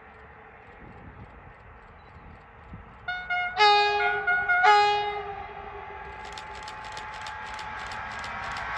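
Diesel freight locomotive, a BB 75000, sounding its horn in two blasts about three to five seconds in, the second pitched lower than the first. Its engine and running noise then grow steadily louder as it approaches.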